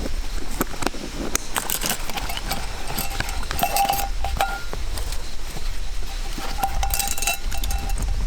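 Metal camp gear clinking and knocking as it is handled: a string of sharp clicks with short metallic rings twice.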